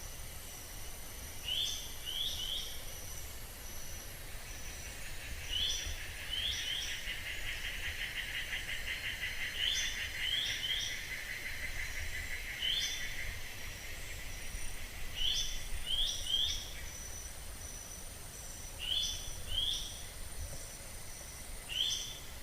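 Buff-vented bulbul calling: short phrases of two or three quick notes, each dropping sharply in pitch, repeated every three to four seconds. Steady high insect tones run underneath, with a pulsing insect trill in the middle.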